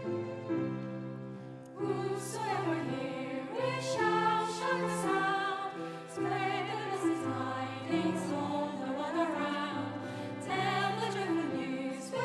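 A hymn sung with vibrato over sustained instrumental accompaniment. The voices come in about two seconds in, after a short instrumental phrase.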